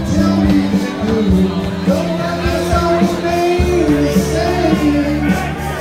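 A man singing a blues number into a microphone through a PA, over amplified backing music.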